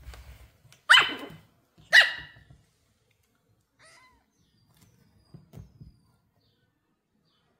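Pomeranian puppy giving two short, excited barks about a second apart.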